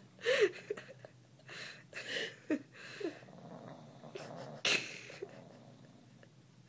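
Sleeping pug snoring: irregular rasping breaths, several ending in a short squeaky falling note, the loudest rasp about four and a half seconds in.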